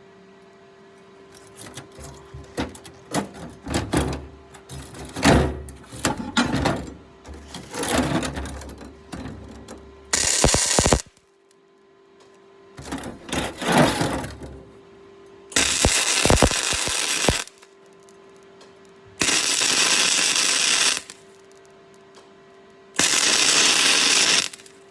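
MIG welder laying welds on steel. Irregular crackling and knocks run through the first ten seconds, then come four steady crackling bursts of one to two seconds each. A steady hum fills the gaps between them.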